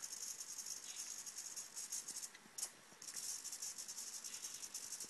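Micro 9-gram Futaba hobby servo sweeping back and forth under the Arduino Sweep sketch: a faint, fast rattling buzz from its motor and gears, which drops out briefly about two and a half seconds in.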